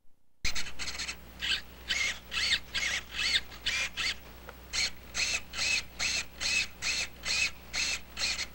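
Radio-control servos whirring in short, evenly spaced bursts, about two to three a second, each rising and falling in pitch, as the transmitter sticks are moved back and forth in a control check of the drone's engine linkage.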